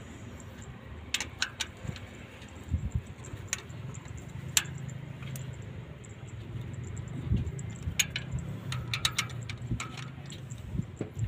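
Light metallic clinks and taps of hand tools and parts being handled during excavator injector work, scattered irregularly. A faint low hum sits underneath, strongest through the middle of the stretch.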